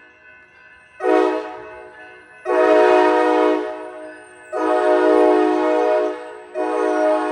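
Train horn sounding a series of blasts: a short one about a second in, then two long ones, and another starting near the end, each a steady chord that trails off after it stops.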